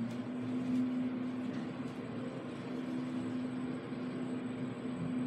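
Schindler lift running: a steady machine hum with one constant low tone.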